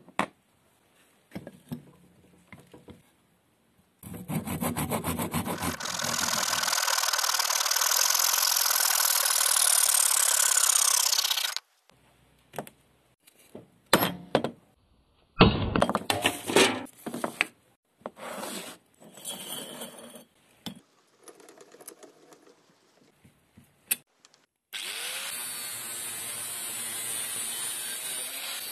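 A power tool runs steadily for about eight seconds and stops abruptly. A steel chisel is then worked into the end grain of a wooden block in short scrapes and knocks, one knock sharper than the rest. Near the end an angle grinder's cut-off wheel starts grinding steadily through a steel pipe held in a vise.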